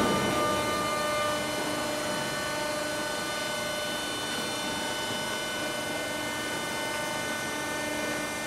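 Bascule bridge's drive machinery and open gearing running: a louder clatter dies down in the first second, leaving a steady hum with several thin whining tones as the bridge leaves are lowered.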